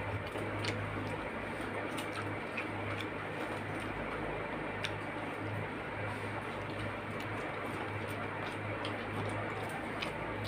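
Eating sounds: fingers mixing and scooping wet rice on a metal plate, with soft squishing and scattered light clicks against the plate, over a steady low hum.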